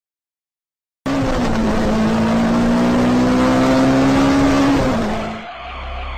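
Car engine held at high, steady revs with tyre-skid noise, starting suddenly about a second in. It falls away after about four seconds into a steady low hum.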